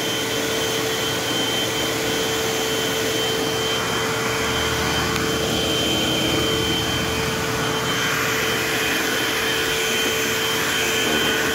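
Eureka AirSpeed multi-cyclonic AS1101 vacuum cleaner running steadily, a constant whooshing motor and airflow with a steady whine.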